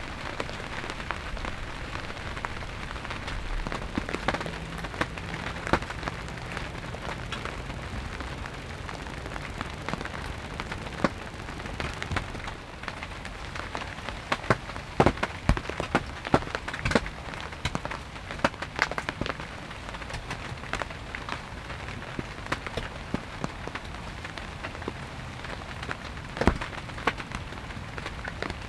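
Steady rain falling, with many individual drops striking close by as sharp separate taps.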